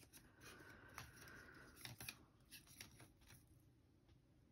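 Faint handling sounds of paper pennants, thread and a paper straw being worked by hand to tie the banner's thread off: light rustling with a scatter of small clicks.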